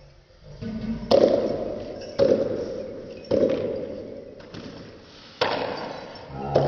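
Four sharp beats or knocks, each about a second apart with a longer gap before the last, each fading away slowly before the next.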